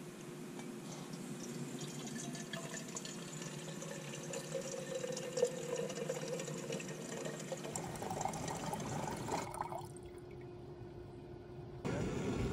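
Water running or being poured, with a faint tone that rises slowly, until it stops about three-quarters of the way through.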